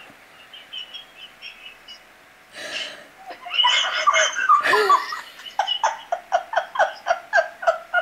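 A woman laughing hard. She starts softly, breaks into loud laughter about three seconds in, and ends in rapid bursts of about four laughs a second.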